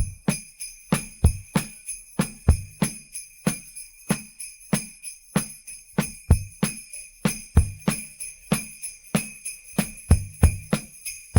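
Sleigh bells jingling steadily over a drum beat of about three low hits a second. They are an isolated drum-and-sleigh-bell track separated out of a full pop song mix.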